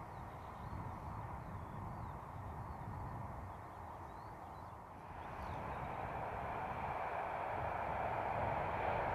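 InterCity 125 HST running through open country. First a distant train's rumble fades away under small bird chirps. About halfway, the sound of an approaching HST comes in and grows steadily louder.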